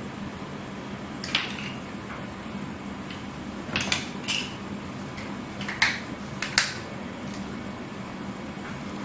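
Thin plastic sunglasses lenses clicking and tapping against a hard tabletop as they are handled and laid down: about half a dozen short, light clicks, some in quick pairs, over a steady low hum.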